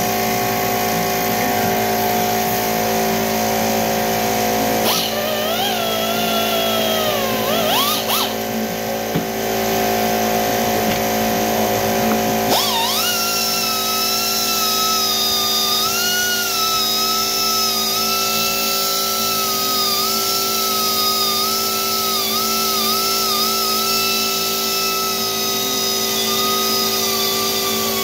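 Air-powered die grinder whining as it works the aluminium cylinder fins of a Harley-Davidson Evolution engine, its pitch wavering as it bears on the metal. It runs briefly about five seconds in, then starts again sharply about twelve seconds in and keeps running, over steady background music.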